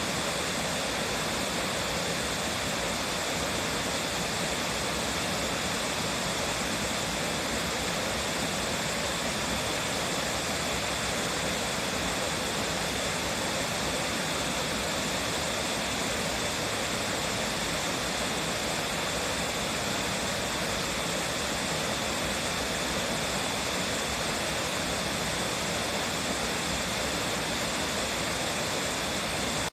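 Waterfall: water plunging and splashing in a steady, unbroken rush.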